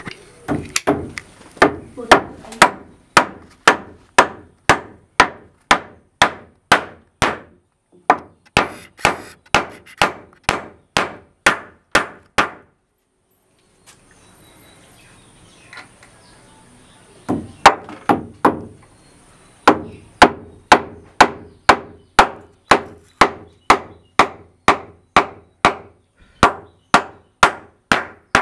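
Hammer striking a wooden door in a steady run of sharp blows, a little over two a second. The blows stop for about five seconds midway, then start again at the same pace.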